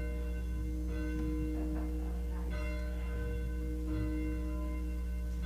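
A church bell tolling. Repeated strokes each ring on with a slowly fading, many-toned hum.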